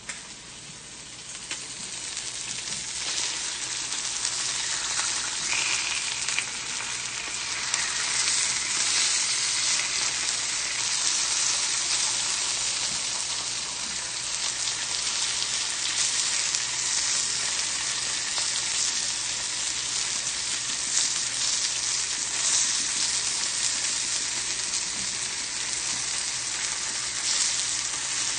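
Chicken breasts searing in oil in a skillet, a steady sizzle that swells over the first few seconds and then holds.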